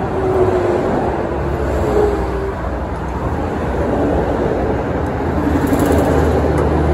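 Steady low engine drone, holding without a break and swelling slightly toward the end.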